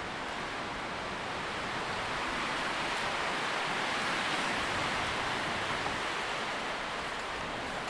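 Tree leaves rustling in the wind: a steady hiss that swells a little in the middle as a gust passes.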